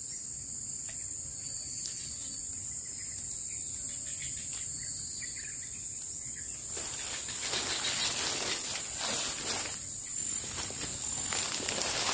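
Steady high-pitched chirring of insects in swamp vegetation. From about seven seconds in, irregular rustling of grass and leaves comes in surges over it.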